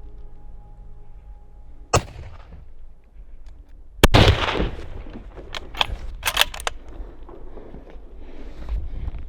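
Two rifle shots: one about two seconds in, then a louder one about two seconds later with a long rolling echo. A few sharp clicks follow.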